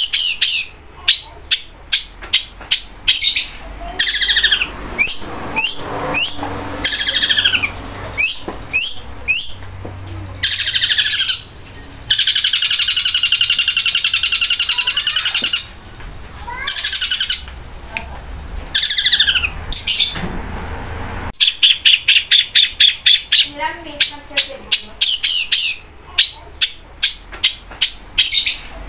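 Long-tailed shrike (cendet) singing loudly, a fast run of short downward-sweeping notes broken by a long rapid rattling trill about twelve seconds in that lasts some three and a half seconds, and a shorter trill a little after twenty-one seconds. The song mimics the calls of the pelatuk bawang woodpecker.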